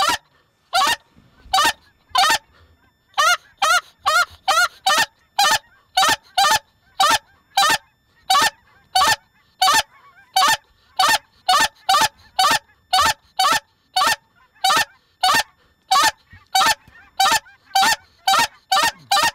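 Mouth-blown goose call imitating Canada goose honks, blown in a steady run of loud, clipped honks about two a second, each with a quick break in pitch, calling to a flock of Canada geese.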